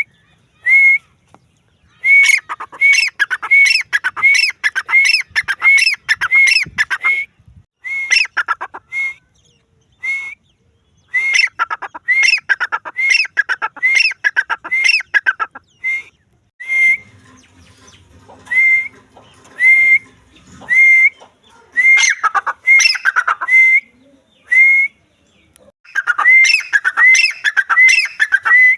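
Teetar (grey francolin) calling: long, loud series of short, sharp whistled notes, each hooked upward in pitch, about two a second, with brief pauses between the runs.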